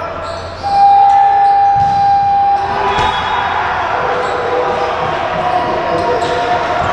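Basketball game in a gym: a scoreboard horn sounds one steady tone for about two seconds, near the start, over crowd hubbub. Balls bounce and short high squeaks are heard throughout.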